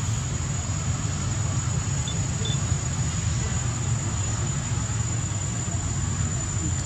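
Steady low background rumble with a thin, constant high-pitched whine above it; two faint short chirps about two seconds in.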